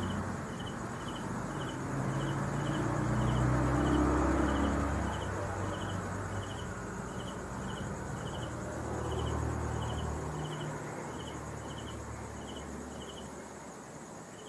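A cricket chirping steadily, about two or three short chirps a second. Under it a low droning hum swells about four seconds in and fades away before the end.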